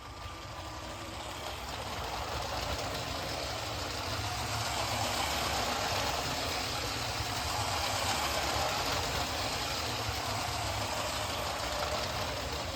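Lego City Express Passenger Train 60337 running on its plastic track, its battery-powered motor whirring steadily. The sound grows louder over the first half and eases a little near the end.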